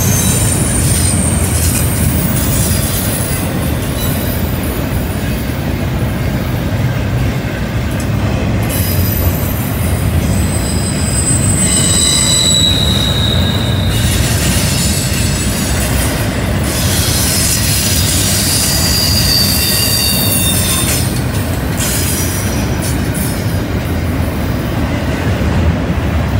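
Double-stack container cars rolling past on a curve. A steady low rumble of wheels on rail runs underneath high-pitched wheel squeal that comes and goes several times as the wheel flanges grind around the curve.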